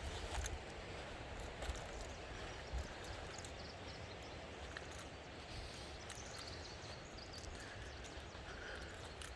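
Steady outdoor background noise with irregular soft low thumps and faint clicks, typical of footsteps on forest ground and the camera being handled while walking.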